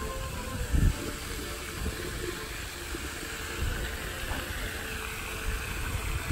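Steady splashing hiss of a park fountain's jets falling back into its pond, with a short low thump about a second in.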